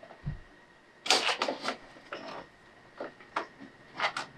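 Clicks and light rattles of winch power cables being handled and fitted around a Jeep's battery and fuse box: a quick cluster of clicks about a second in, then a few single clicks.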